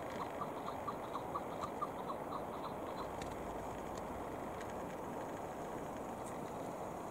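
Chukar partridge calling: a fast, even series of short clucking notes, about four a second, that stops about three seconds in. A steady background hiss and a few faint clicks follow.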